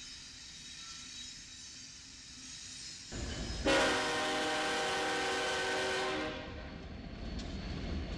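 A diesel freight locomotive's air horn sounds one long blast of about two and a half seconds, a steady multi-note chord, as the locomotives pass close by. Before it there is the low rumble of a passing train, and after it the rumble of the engines and wheels on the rails carries on.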